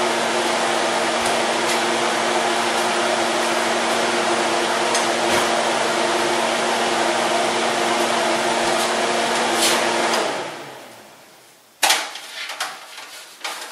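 Steady whirring hum of a kitchen fan motor, switched off about ten seconds in and spinning down to quiet. A few knocks and clatters of dishes or pans follow near the end.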